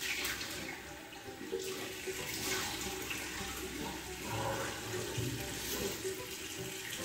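Tap water running into a bathroom sink while hands scoop and splash it onto a face, a steady rush with irregular surges of splashing.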